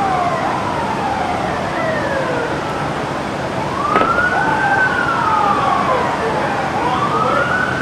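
Emergency vehicle sirens wailing, several at once, their pitch slowly rising and falling in long sweeps. A single sharp crack sounds about four seconds in.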